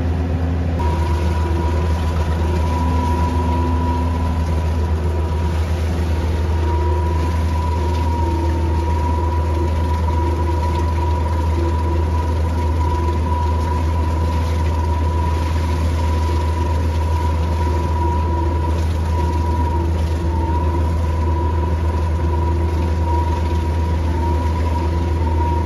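Engine of a work vehicle driving slowly over muddy ground: a steady low drone with a steady high whine over it that comes in about a second in.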